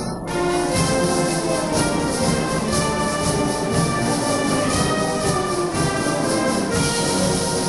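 Brass band music, with a timbrel brigade shaking and striking timbrels in time with it.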